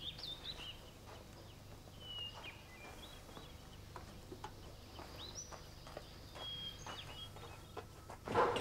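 Faint birds chirping in short, scattered calls, with light ticks and knocks between them and a brief louder noise near the end.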